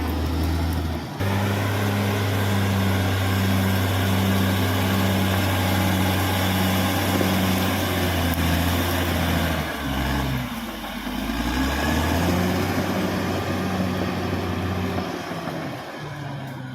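Caterpillar D6R XL bulldozer's diesel engine running hard under load. The revs sag and recover about two-thirds of the way through, and the sound eases off near the end.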